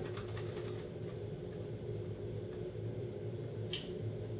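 Bread with hummus being chewed: faint wet mouth clicks in the first second and a short crisp sound near the end as another bite is taken, over a steady low hum.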